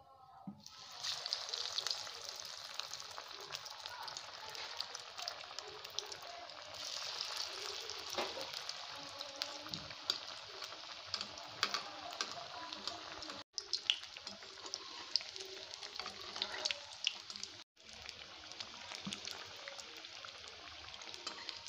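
Breadcrumb-coated potato patties (aloo tikki) deep-frying in hot refined oil in a kadhai: a steady crackling sizzle with many small pops, starting about a second in and briefly cutting out twice.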